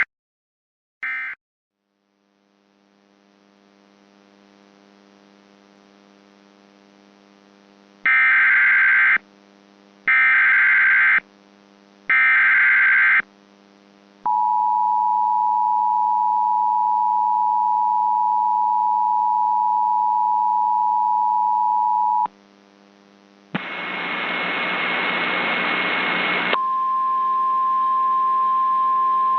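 Mock Emergency Alert System tones. A short digital data burst comes about a second in. After a faint low hum, three loud one-second digital bursts of a SAME header follow, then the two-tone EAS attention signal holds steady for about eight seconds. A three-second burst of static follows, and then a single steady alert tone.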